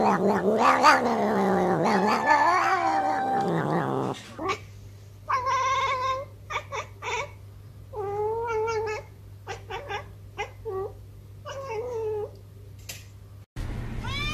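A black cat letting out a long, wavering, yowling meow that rises and falls in pitch, a "weird meow". It is followed about four seconds in by a tabby cat making a string of short separate calls.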